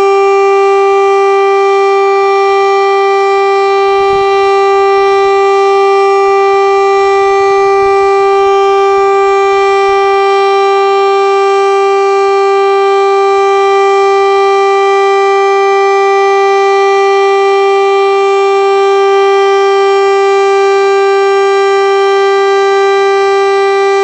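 KIRKE 400 civil-defence siren sounding one steady, unwavering tone with many overtones. This is the continuous test signal of the monthly siren test.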